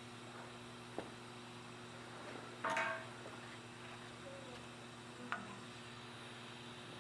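Benchtop manual welding positioner being handled: a sharp click, then a metallic clank with a brief ring, and a lighter tick, over a steady electrical hum.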